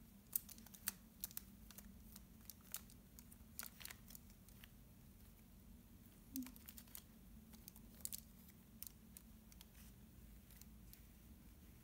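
Faint, irregular plastic clicks of a 72-piece Rubik's Snake's wedges being twisted and pressed into place by hand, thinning out near the end.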